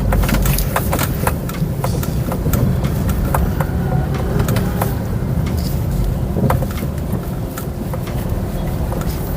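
Car driving over a rough, unfinished road under construction: a steady low rumble with many scattered sharp clicks and knocks.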